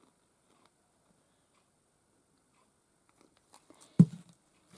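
Craft materials being handled on a tabletop: near quiet, then a few light clicks and one sharp tap about four seconds in, as something is set down.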